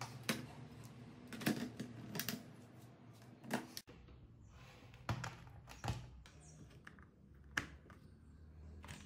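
About seven scattered sharp clicks and knocks from handling a 21 V AC/DC charger adapter as it is plugged into a wall socket and its DC plug is pushed into a cordless drill's 21 V battery pack. A faint low steady hum runs under them.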